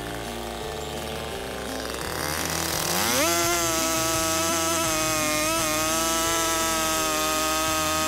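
Two-stroke chainsaw bucking a shagbark hickory log. It runs lower for the first couple of seconds, revs up in a rising whine about three seconds in, then holds steady at full throttle in the cut.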